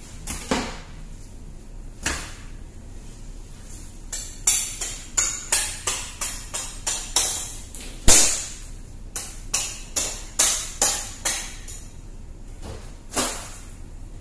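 Steel knife blades being honed one against the other: a quick run of ringing metal scrapes, about three a second, from around four seconds in to around eleven seconds, the loudest near the middle. There are a few single scrapes before and after.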